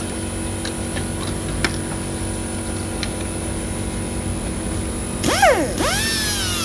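A steady engine hum with a few faint clicks. Near the end a pitched sound sweeps up and falls away.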